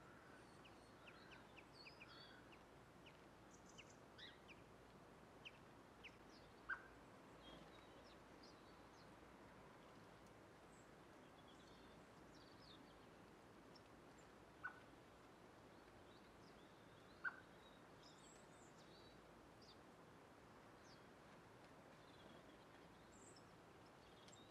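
Near silence: a faint outdoor background with scattered thin, high chirps of small birds and three short, sharp clicks spaced well apart.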